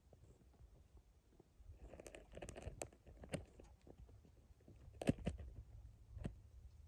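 African elephants' footsteps crunching on dry, stony earth: scattered soft crunches and clicks, loudest a little after five seconds in, over a faint low rumble.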